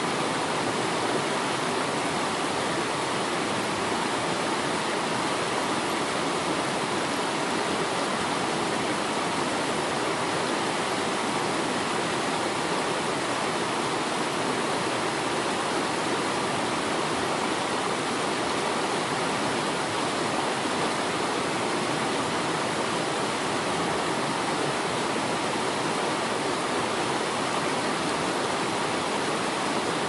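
Waterfall rushing in a continuous, even roar of falling water that never changes in level or character.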